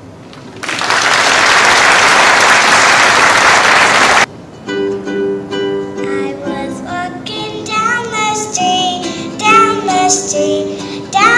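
Audience applause for about four seconds that cuts off abruptly, then a ukulele strumming chords while a young girl sings a simple children's tune.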